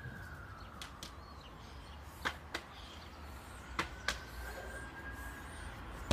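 Sharp taps of a foot against a football as it is dribbled, in pairs about one, two and four seconds in. A distant siren faintly rises and falls underneath.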